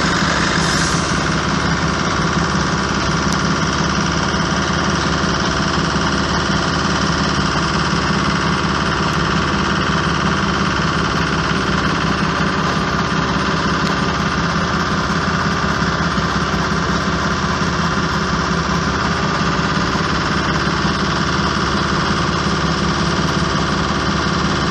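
A diesel railway engine running steadily at idle, close by, with a fast, even chug.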